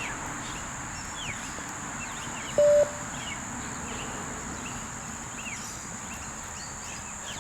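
A single short electronic beep from the beep-test recording about two and a half seconds in, marking the end of a 20-metre shuttle. Underneath, a steady high insect drone and scattered short bird chirps.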